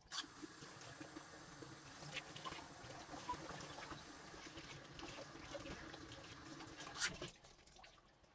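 Kitchen tap running faintly into a stainless steel sink while raw chicken pieces are rinsed and rubbed by hand, with small wet handling sounds. A brief louder knock comes about seven seconds in, and the sound falls away shortly before the end.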